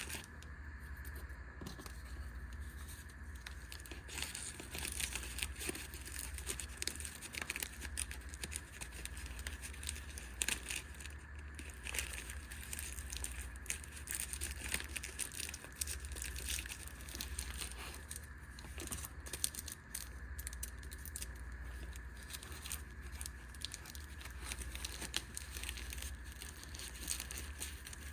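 Rustling, crinkling and small clicks of gear being handled and packed into a fabric pouch, irregular and continuous, over a steady low hum.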